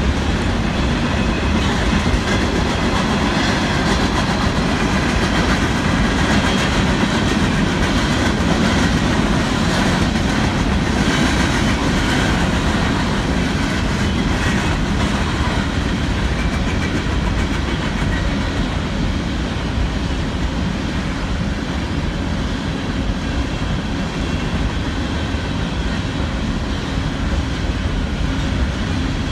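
BNSF coal train's hopper cars rolling past steadily, steel wheels running on the rails.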